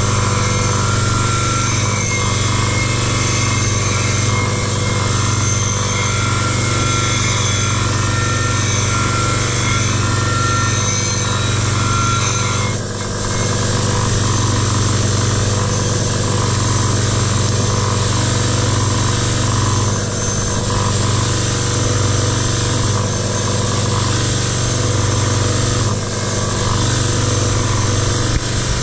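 Electric wire brush wheel running steadily as the clutch pulley shaft is held against it to scrub off rust buildup, with a steady motor hum and brush noise that dips briefly twice.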